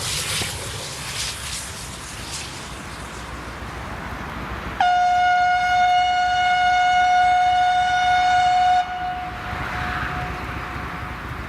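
Steam whistle of the DR class 18 201 locomotive sounding one long, steady note, which starts suddenly about five seconds in. The full note cuts off after about four seconds, and a fainter trace of it lingers for a couple of seconds more, heard over the broad rushing noise of the running train.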